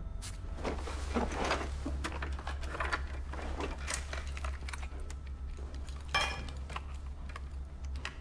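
Irregular small clicks and clatters of electronic parts and hand tools being handled on a workbench, over a steady low hum.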